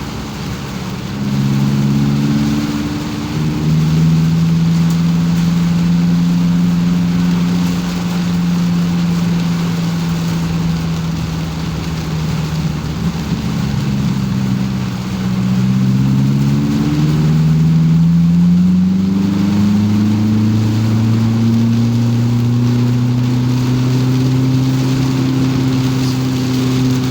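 Car engine running on the move, its pitch steady at first, dropping about halfway through and then climbing slowly toward the end, over a steady hiss of tyres and rain on a wet road.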